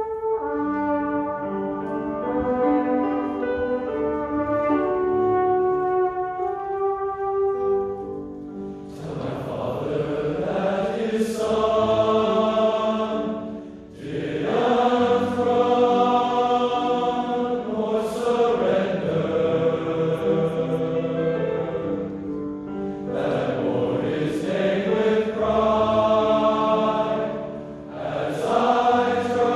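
Men's chorus singing sustained chords in parts, soft at first and growing fuller and louder about nine seconds in, with brief breaks between phrases midway and near the end.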